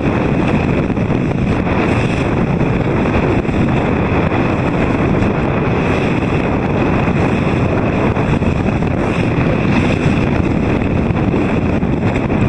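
Strong wind buffeting the microphone, with the rush and splash of choppy water around a boat; steady and loud throughout.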